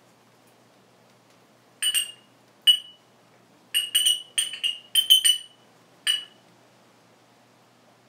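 African grey parrot giving a quick, irregular series of about nine short, sharp, high-pitched whistles.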